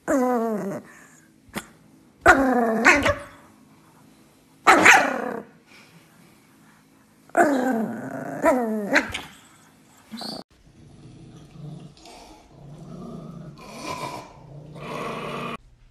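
Small dog growling and snarling through a chew bone held in its mouth, in four loud, falling growl-bark bursts a couple of seconds apart. After about ten seconds, quieter growling from another small dog follows.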